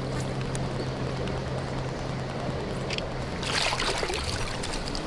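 Water splashing and sloshing at a pond's edge as a hooked fish thrashes in a landing net, with a stronger burst of splashing about three and a half seconds in.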